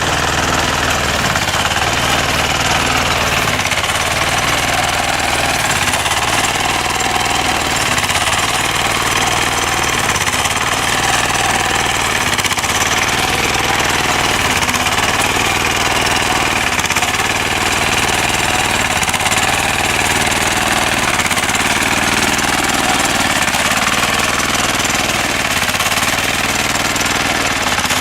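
Engine of a homemade hay baler running steadily, with a fast knocking chatter.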